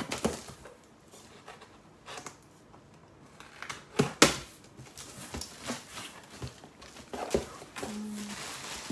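Cardboard boxes being handled and shifted by hand: scattered knocks and scrapes of cardboard, the loudest pair about four seconds in.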